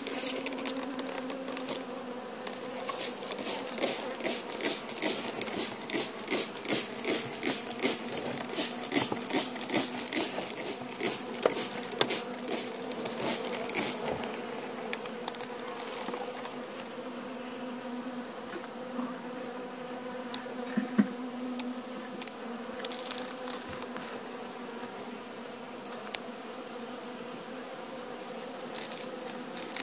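Honeybees humming steadily in an open hive. For roughly the first half there is also a quick, even run of sharp ticks, about two or three a second.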